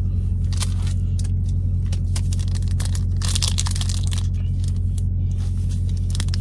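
A foil Pokémon booster pack being torn open and crinkled by hand, the rustling densest about three seconds in. Under it runs the steady low drone of an idling semi-truck.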